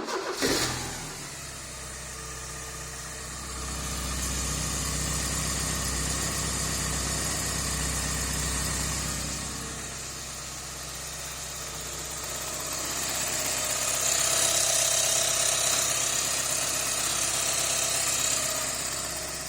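Porsche 944 four-cylinder engine starting and then idling steadily, growing louder twice for a few seconds. The exhaust leak at the flange between the manifold and the main exhaust is sealed with a new gasket.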